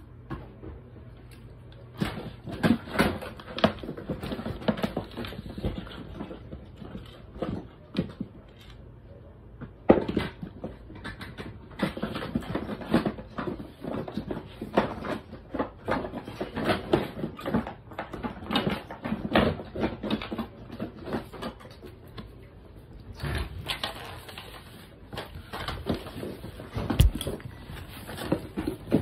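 Irregular handling noise: rapid clicks, taps and rattles, starting about two seconds in and thinning out briefly a couple of times.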